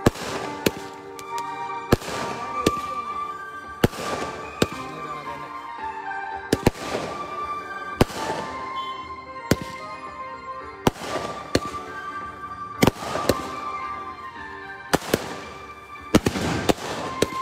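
Fireworks going off in a rapid, irregular string of sharp bangs, roughly one every half-second to second, each with a brief echo, while music plays underneath.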